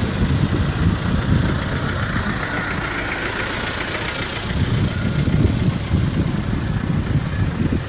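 Off-road vehicles driving slowly past one after another in a parade: a vintage Toyota Land Cruiser 40-series, then a Toyota Land Cruiser Prado, with a low engine rumble and tyre noise on asphalt. The rumble grows louder from about five seconds in, as the Prado passes close.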